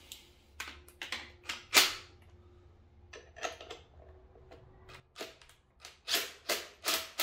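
Cordless DeWalt driver run in short bursts, spinning in the bolts of a fan drive mount. The bursts come close together, about two or three a second, near the end.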